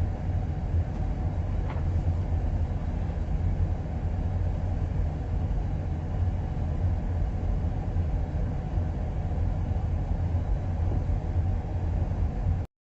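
Cummins diesel engine of a DR2 drill machine running steadily with a deep rumble. The engine has been overhauled but still puts out heavy black smoke. The sound cuts out for a moment near the end.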